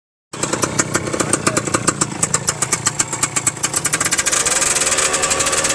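Custom motorcycle engine running through a short straight exhaust pipe, a fast train of sharp exhaust pulses, revved by hand on the throttle so the revs climb about four seconds in.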